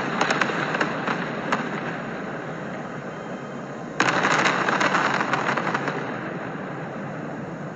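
Fireworks: a wide volley of aerial bursts crackling densely and fading. A second volley starts sharply about four seconds in, crackles, then fades out.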